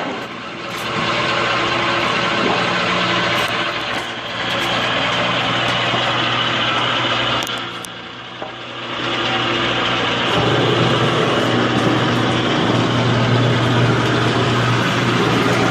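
Steady mechanical drone of a motor running, with a low hum; it drops away briefly twice and runs louder in the last third.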